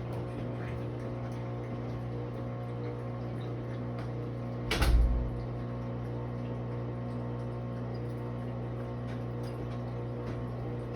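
Maytag washing machine running with a steady hum, and one loud, heavy bang about five seconds in: the banging noise the washer is making.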